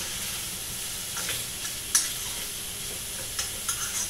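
Leftover rice with carrot and onion frying in a little lard in a saucepan, sizzling steadily while a spoon stirs it. A few short clicks and scrapes of the spoon against the pan.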